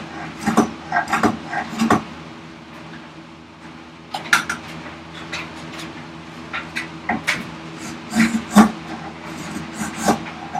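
Spokeshave taking short, irregular strokes across tough end grain of ash, the blade chattering a little.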